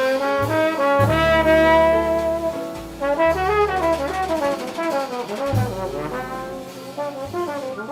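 Small jazz ensemble playing a ballad, brass to the fore with the trombone most prominent, over piano, upright bass and drums. Several horn lines hold and bend notes together while the bass moves underneath, and the playing grows quieter toward the end.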